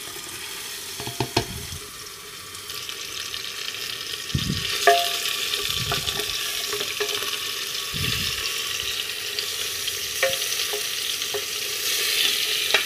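Chunks of beef rib sizzling as they fry in hot oil with onion and garlic in a pressure cooker, the sizzle swelling about two to three seconds in as the meat goes in. A metal spoon clinks against the pot a few times while stirring.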